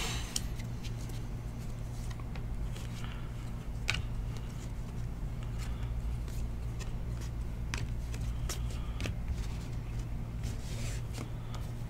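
Trading cards being slid and flicked through the hands, faint scrapes and light clicks, over a steady low hum.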